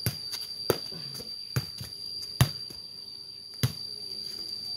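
A ball being kicked and juggled with bare feet, its bounces and kicks making about six sharp, irregularly spaced thuds, over a steady high-pitched drone.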